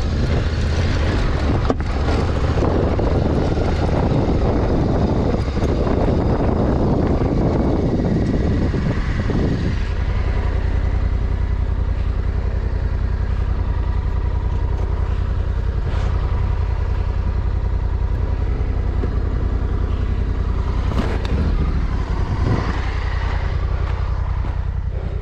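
Honda Africa Twin 1100's parallel-twin engine running as the motorcycle rides a rocky off-road track. For the first ten seconds or so a broad rush of noise covers it; after that the engine's steady low drone dominates.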